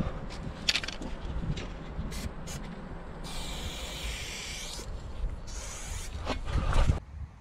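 Aerosol spray-paint can hissing in one long burst of about a second and a half in the middle, after two short sprays, over scattered knocks and low rumble.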